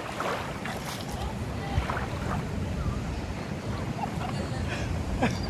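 Wind buffeting the microphone over the wash of sea waves, with faint voices.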